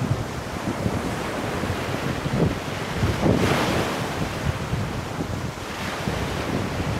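Surf breaking and washing on a pebble beach, with wind buffeting the microphone. A louder wave surges up about halfway through.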